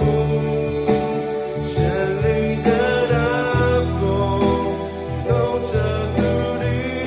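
Worship-song band music, guitar prominent, with sustained chords and a regular drum and cymbal beat.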